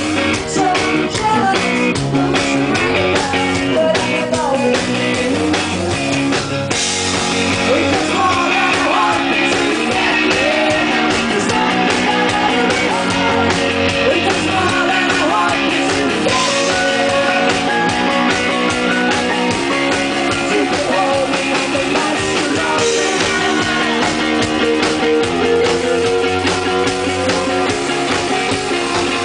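Rock music with a drum kit and guitar playing steadily; the sound turns brighter and fuller about seven seconds in.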